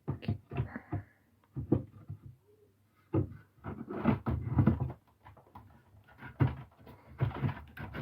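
Repeated knocks and scraping of a 3D-printed plastic piece being worked into place against the wooden pallet frame, in irregular clusters with a busy stretch in the middle.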